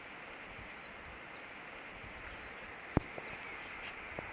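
Steady hiss of light rain falling on the clifftop. About three seconds in there is a single sharp knock, followed by two fainter ones.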